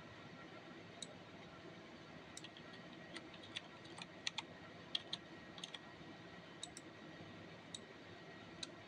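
Scattered clicks of a computer mouse, some in quick pairs, over a faint steady hiss of room tone.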